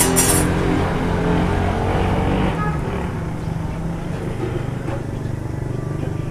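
Chapli kababs frying in a wide karahi of fat: a sizzle that fades out after about two and a half seconds. Under it runs a steady low mechanical hum.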